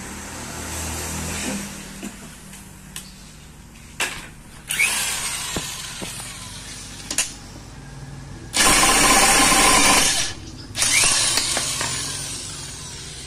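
DCA APB20C corded electric impact wrench hammering on a car's wheel lug nuts to loosen them, in several short trigger bursts. The longest and loudest burst, about a second and a half, comes just past the middle, and the motor winds down with a falling whine after some bursts.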